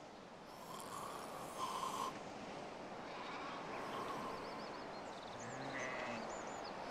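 Quiet outdoor ambience: a soft, airy hiss that swells over the first couple of seconds, with a few faint, short high chirps in the second half.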